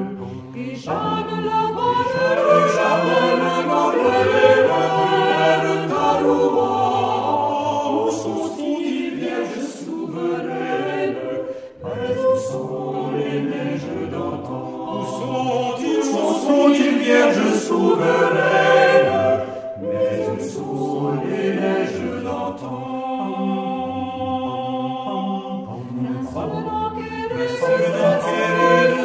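Mixed vocal ensemble of men's and women's voices singing a choral arrangement of a French chanson, in several-part harmony.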